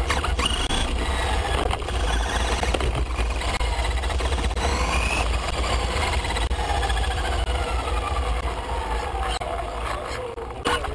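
Remote-control race car motor whining, its pitch sliding down and up with the throttle, over a heavy low rumble.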